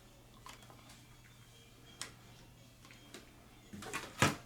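Handling of small plastic Heroclix figures and their packaging: a few light, scattered clicks, then a louder cluster of clacks and rustling near the end.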